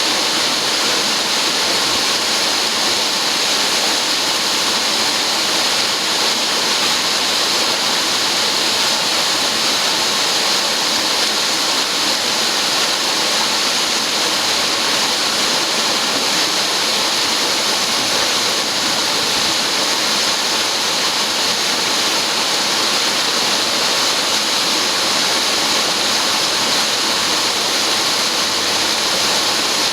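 Duct-cleaning vacuum machine running steadily: an even, unbroken rush of air that neither rises nor falls.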